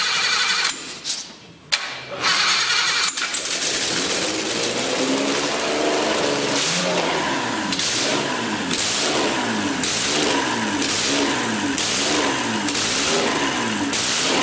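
Freshly rebuilt BMW M30B30V straight-six with twin Zenith INAT carburettors, on an engine stand with no exhaust manifold fitted, being started: it catches after a brief stumble near the start, then runs and is revved up and down about once a second.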